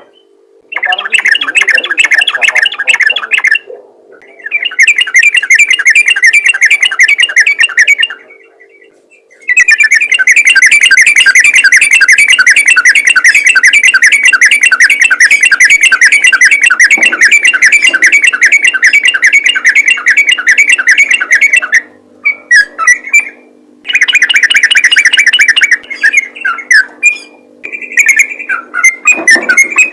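Yellow-vented bulbul (trucukan) singing its fast, rattling 'ropel' song: long runs of rapidly repeated notes with a few short pauses, turning into shorter broken phrases in the last several seconds. A faint steady low hum runs underneath.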